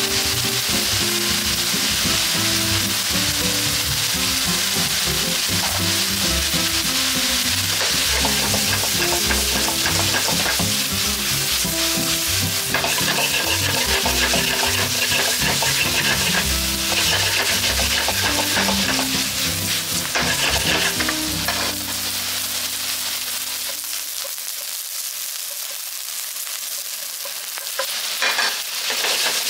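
Meat, seafood and vegetables sizzling in a hot wok as they are stirred and tossed with a spatula, with a few sharp clacks of the spatula against the wok near the end. Background music plays underneath and fades out about three quarters of the way through.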